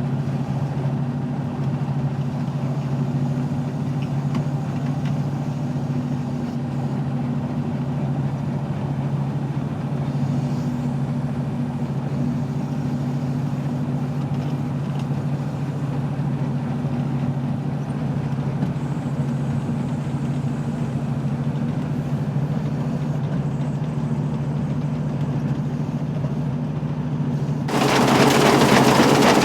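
Fortschritt E514 combine harvester running steadily with a low, even hum from its 6.6-litre four-cylinder engine and threshing gear. Near the end the sound suddenly becomes much louder and harsher.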